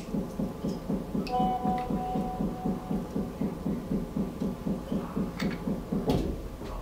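The blade remover of an OM-518Plus LCD separator is driving its heated blade under an LCD's polarizer film, with a steady low throbbing at about four to five pulses a second that stops about six seconds in. A short thin squeal comes about a second and a half in, and a couple of clicks come near the end.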